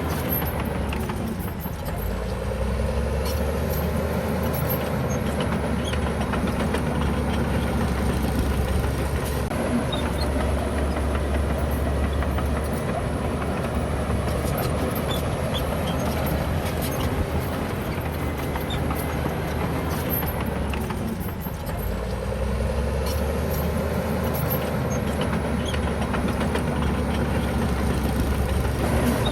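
Bulldozer's diesel engine running steadily. Its pitch sags twice, about two seconds in and again about two-thirds of the way through, then climbs back each time. A thin high whine glides up and down over it.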